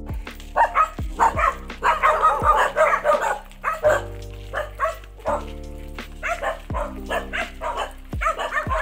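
Background music with a slow, steady beat, about one low thud a second, over a dog barking repeatedly in irregular bursts, most densely in the first half.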